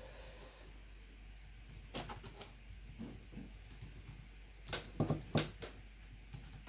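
Typing on an HP EliteBook 8470p laptop keyboard: scattered key clicks, with a louder run of taps about five seconds in.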